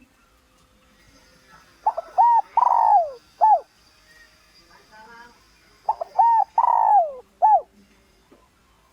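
Spotted dove (Streptopelia chinensis) cooing: two phrases about four seconds apart, each of two short coos, a longer coo that falls in pitch, and a short final coo. It is a decoy call, played to lure wild males in to fight.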